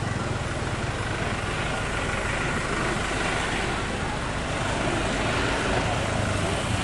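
Slow, congested street traffic: vehicle engines running with a steady low drone, a heavy truck among them.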